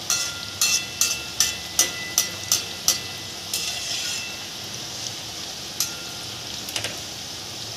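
Dough snacks deep-frying in hot oil in a steel wok, a steady sizzling hiss. A perforated steel frying spoon clinks against the wok with a short metallic ring, about eight times in the first three seconds and a couple more times near the end.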